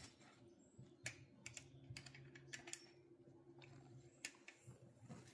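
Near silence with faint, scattered light clicks and taps over a low steady hum.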